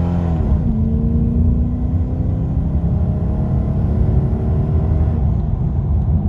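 V8 engine of a 1999 Holden Commodore VT HSV Clubsport accelerating under a little throttle. Its note dips sharply just after the start, then climbs slowly and steadily in pitch over a low rumble.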